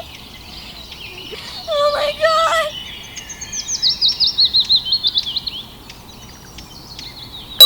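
Birds calling: a wavering call about two seconds in, then a quick run of chirps falling in pitch.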